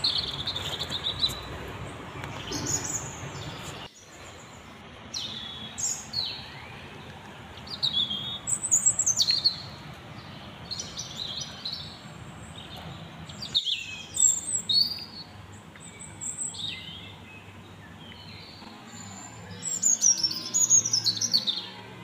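Small birds chirping: short, high calls that slide down in pitch, coming every second or so, with a quick run of calls near the end over a faint steady background hum.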